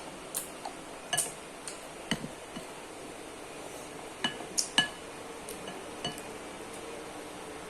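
Cutlery clinking against a bowl while eating noodles and rice: about a dozen light, sharp clinks at irregular intervals, the loudest few about four to five seconds in.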